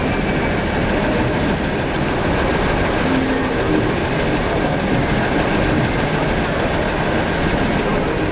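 Steady roar of busy downtown street traffic.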